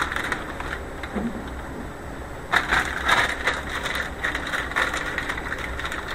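Black olives being handled and set out on a cutting board: rustling and light clicks, busiest from about two and a half to three and a half seconds in, over a steady low hum.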